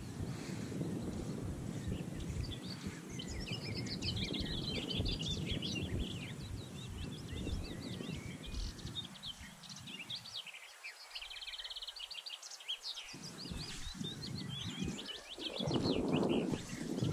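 Wild birds chirping and singing over a rough rumble of wind on the microphone, which briefly drops away about two-thirds through; a louder rustle of noise near the end.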